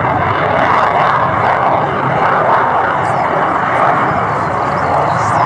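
Saab JAS 39 Gripen fighter in flight, its single Volvo RM12 turbofan giving a loud, steady rushing jet noise.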